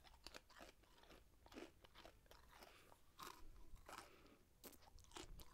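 Faint, scattered crunching and chewing sounds from a person's mouth close to the microphone.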